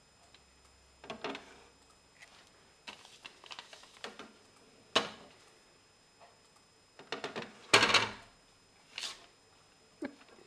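Scattered clicks, knocks and paper rustles as a cat steps about on loose sheets of paper at a printer and a hand moves the paper by the printer's tray. The events come irregularly, with a sharp click about five seconds in and the loudest clatter about eight seconds in.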